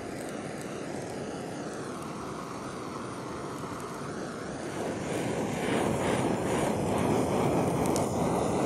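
Handheld butane kitchen torch burning with a steady hissing rush of flame as it singes the skin of a raw plucked chicken. It grows louder about halfway through.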